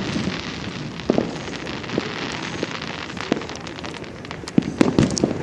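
Fireworks going off: scattered pops and crackling over a steady hiss, with a few louder pops about a second in and a quick cluster of them near the end.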